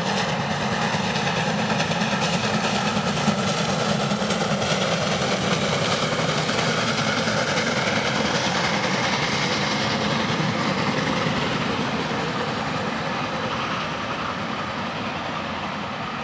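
Steam-hauled vintage passenger train passing close by, its coaches' wheels running over the rails. The sound eases off near the end as the train moves away.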